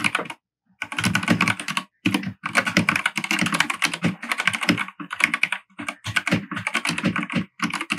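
Royal Kludge RK100 mechanical keyboard with linear Gateron red switches being typed on fast, in quick runs of keystrokes broken by brief pauses.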